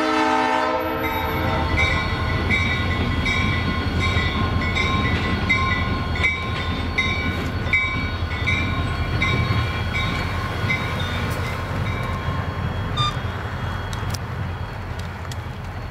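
Diesel freight locomotive's multi-chime air horn ending a blast, then the train rumbling as it pulls away and fades. A bell rings about twice a second over it and stops about two-thirds of the way through.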